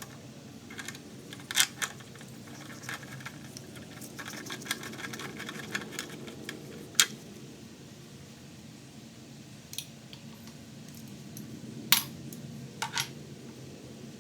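Scattered metallic clicks and clinks of hand tools and small metal parts being handled during lawnmower reassembly, with a few sharper clanks: one near the start, one midway and two near the end.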